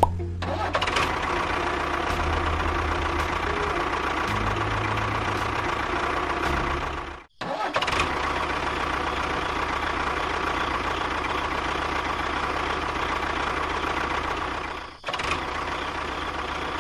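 Small electric motor and gears of a homemade miniature tractor running steadily with a whine, cutting out briefly about seven seconds in and again near fifteen seconds.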